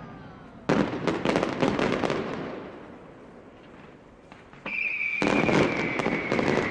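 Fireworks going off: a dense burst of crackling starting about a second in and dying away, then a high whistle that falls slowly in pitch, joined near the end by a second crackling burst.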